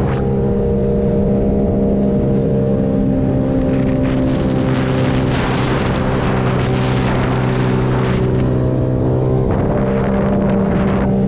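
Sea-Doo Spark personal watercraft with a tuned Rotax 900 ACE three-cylinder engine running flat out, held at one steady high pitch, which the rider thinks was the rev limiter. Water spray and wind rush over it, heaviest in the middle.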